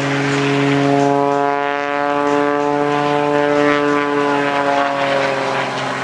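Single-engine aerobatic propeller plane flying overhead, its engine and propeller drone rising in pitch and then falling over a few seconds as it manoeuvres.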